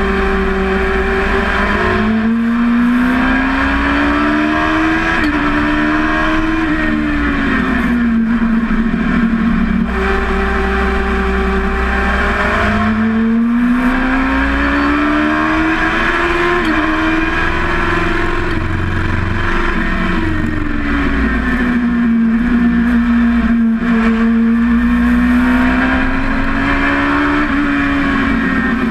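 Dwarf race car's motorcycle engine heard from inside the cockpit at racing speed. It revs up through the gears with short dips at the upshifts and falls in pitch when the car slows for corners, then climbs again. Steady wind and road noise run underneath.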